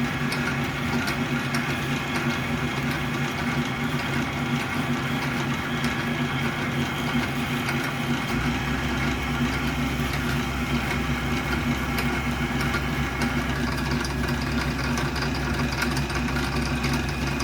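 Old South Bend lathe running in back gear while drilling into a steel blank: a steady mechanical hum of motor and gears. A deeper rumble joins about eight seconds in and holds.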